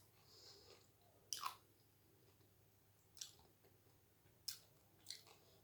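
A person chewing a mouthful of doi fuchka, with a few separate soft crunches of the fried puri shell. The loudest crunch comes about a second and a half in, and fainter ones follow later on.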